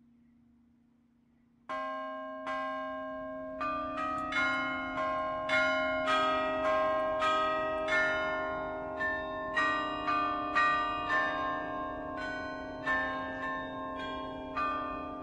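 Bells ringing: struck notes at varying pitches, one or two a second, each ringing on and overlapping the next. They start about two seconds in, after a faint steady hum.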